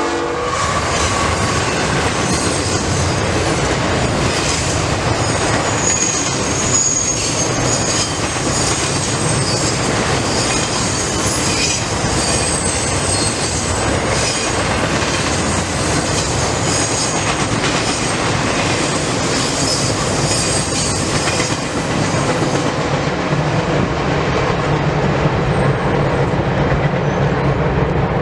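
CSX freight train rolling past at close range: a steady loud rumble of wheels on rail with clatter from the rail joints and high-pitched wheel squeal. The squeal fades about 23 seconds in, leaving a lower rumble.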